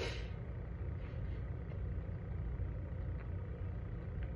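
Steady low background rumble, with a short breath at the very start and a few faint ticks.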